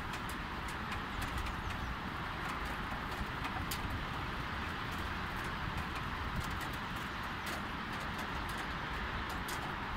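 Light rain falling: a steady hiss with scattered drops ticking irregularly close by, over a low rumble of distant traffic.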